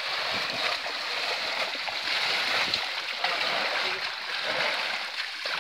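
Dense, continuous splashing of many fish thrashing at the surface inside a seine net that has been hauled in tight in shallow water.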